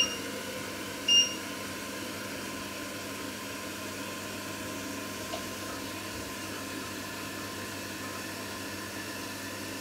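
Two short, high electronic beeps about a second apart from an electric cooktop's controls as the heat is set, over a steady hiss.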